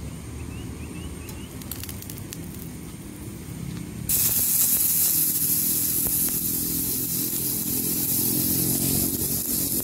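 Marinated lamb laid into a hot oiled frying pan, starting a loud, steady sizzle that begins suddenly about four seconds in. Before that there is only a low rumble and a few light clicks.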